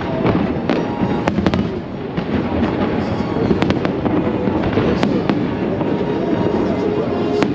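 Fireworks going off: about nine sharp bangs spread over several seconds, some in quick pairs, over a steady background din.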